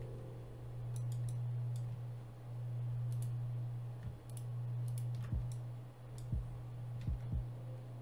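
Scattered clicks of a computer mouse and keyboard, one every second or so, over a steady low hum.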